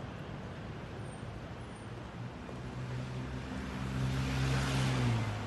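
A motor vehicle passing by: its engine hum and tyre noise swell over the last couple of seconds, dip slightly in pitch and fall away near the end, over steady background traffic noise.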